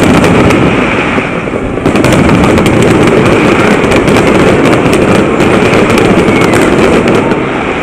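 Fireworks display going off in a loud, dense, continuous barrage of rapid bangs and crackles, easing briefly about two seconds in.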